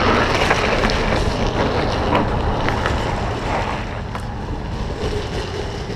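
Wind rushing over the microphone over a steady rumble of drift trike wheels rolling on asphalt, with a few light clicks and rattles.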